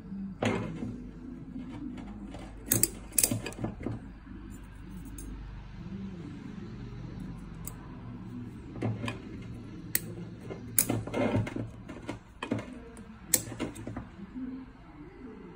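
Piston rings clicking and scraping against a Detroit Diesel piston as they are worked into the ring grooves by hand, with scattered sharp metallic clicks over a low steady hum.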